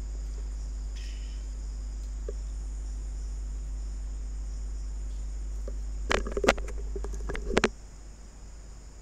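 Steady low electrical hum with a thin high-pitched hiss over it, broken about six seconds in by a quick cluster of knocks and clatter lasting about a second and a half, after which the hum drops away.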